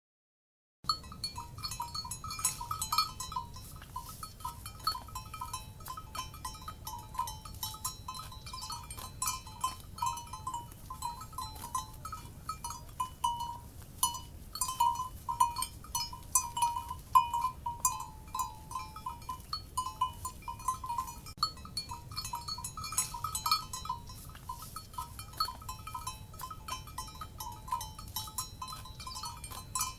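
Many cowbells worn by grazing livestock clanking irregularly and continuously, the ringing strikes overlapping, over a steady low rumble. The sound starts suddenly about a second in, after silence.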